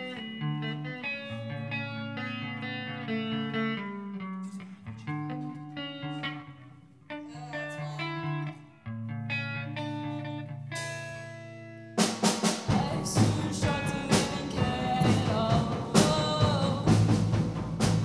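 Live rock band playing: a clean, picked guitar line over bass notes, then about twelve seconds in the drums and full band come in, much louder.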